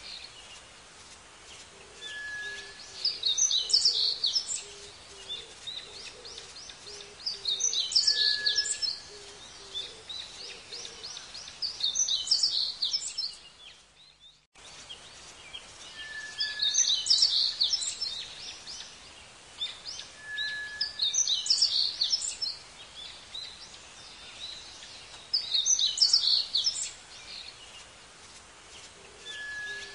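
A songbird singing the same short phrase of rapid high notes every four to five seconds, several phrases led by a single clear whistled note, over a steady outdoor background hiss. The sound cuts out briefly about halfway through.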